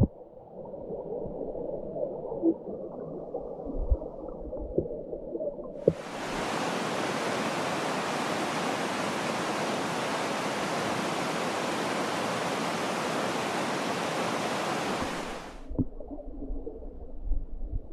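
Stream water running, heard muffled through an underwater camera with a few sharp knocks, switching about six seconds in to the open, full rush of the stream above water, then back to the muffled underwater sound near the end.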